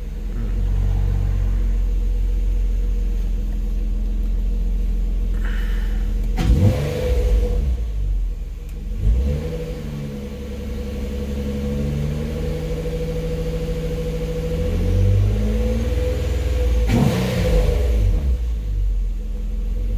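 2010 Nissan Maxima's 3.5-litre VQ35 V6 running through a newly fitted Torxe dual catback exhaust and Y-pipe, with a deep steady rumble, revved up and let fall back several times. The owner believes the exhaust leaks slightly at a flange where a stud bolt broke.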